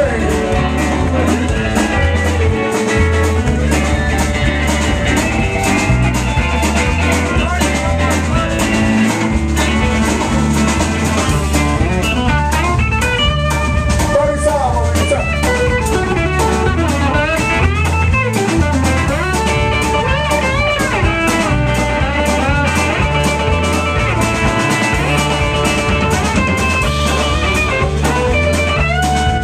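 Live band playing an instrumental passage: electric guitar lead with bending, sliding notes over a drum kit and a steady low bass line.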